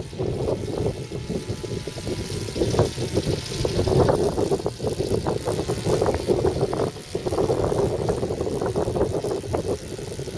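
Autogyro engine and pusher propeller droning as the gyrocopter flies overhead. The level rises and falls unevenly.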